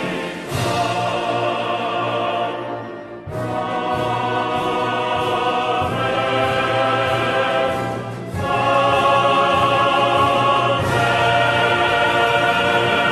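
Choral music: voices singing held notes with vibrato. It dips briefly about three seconds in and grows louder a little past halfway.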